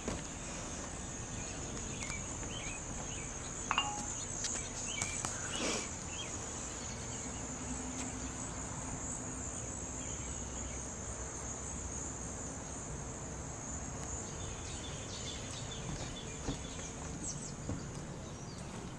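Insects outdoors in a steady high-pitched chorus that holds unchanged throughout, with a few faint ticks in the first several seconds.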